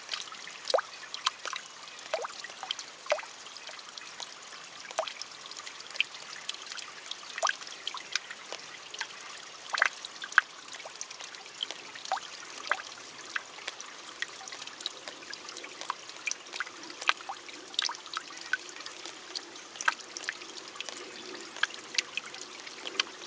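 Rain falling on leaves: irregular taps of single drops striking the leaves close by, over a steady soft hiss of rain.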